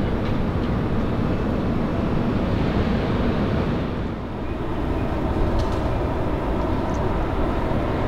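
Steady low rumble of city vehicle noise, dipping briefly about halfway through.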